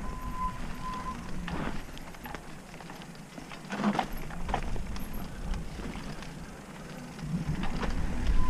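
Mountain bike riding a dirt singletrack: tyres rumbling over the trail, wind buffeting the camera microphone, and sharp knocks and rattles from the bike over bumps, loudest about four seconds in and again near the end. A brief steady high whine sounds in the first second.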